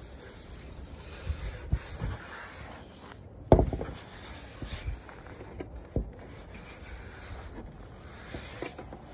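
Hands and phone rubbing and scraping against a pickup's front grille and hood edge while fumbling for the hood latch, with a few dull knocks; the loudest knock comes about a third of the way in, another about two-thirds in.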